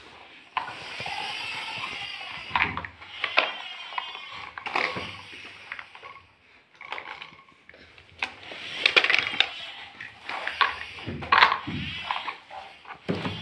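Plastic toy blocks and a plastic toy tractor knocking and clattering as a small child handles them, with irregular sharp clicks and rustling.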